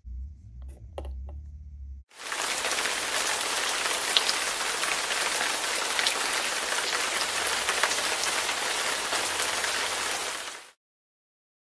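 Water running from a miniature working dollhouse faucet and splattering into the sink and over a tiny colander of toy vegetables. It starts suddenly about two seconds in, after a few handling clicks, and cuts off abruptly near the end.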